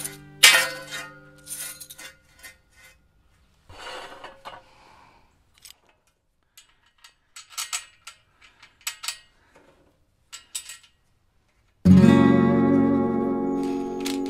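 Scattered light metallic clinks of clamp hardware on steel conduit and strut channel. About twelve seconds in, a cordless Ryobi impact driver starts running loudly, driving a bolt into a strut clamp on the pipe.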